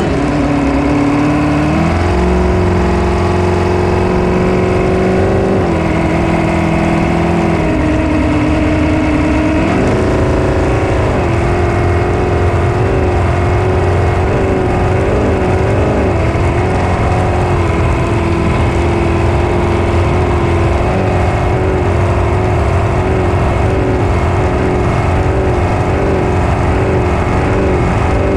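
Race boat engine running hard at speed, its pitch stepping up about two seconds in and again around ten seconds, then holding with slight wavers. Rushing water and wind noise run under it.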